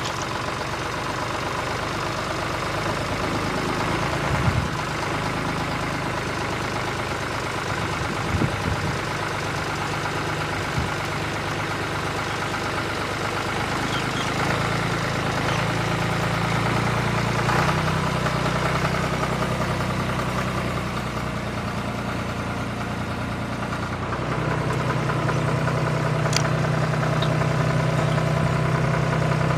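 An engine idling with a steady low hum, growing louder around halfway through and again near the end, with a few short knocks in the first third.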